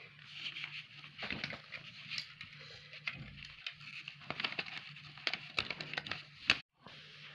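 Paper and green card being handled and folded: continuous rustling and crinkling with many small clicks and taps, the sharpest about six and a half seconds in. A faint steady low hum runs underneath.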